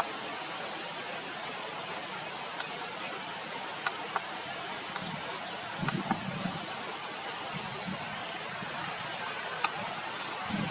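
Steady outdoor background hiss, with a few sharp clicks and a faint, evenly repeated high chirp.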